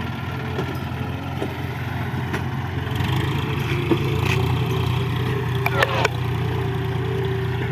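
Heavy diesel engine running steadily, rising in level about three seconds in as it takes more load, with a few short sharp knocks near the four- and six-second marks.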